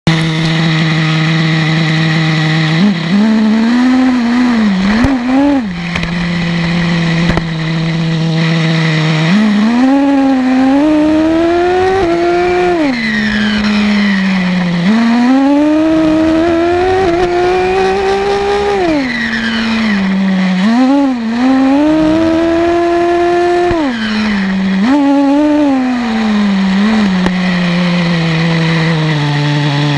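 Small two-stroke nitro glow engine of an HPI RS4 3 two-speed RC touring car, heard close up from a camera mounted on the car. It idles steadily at first, then revs up again and again in long rising runs as the car accelerates, dropping back to idle between runs.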